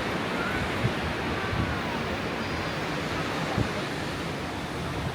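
Sea surf washing onto a sandy beach, a steady rush of noise, with wind on the microphone giving a few brief low thumps.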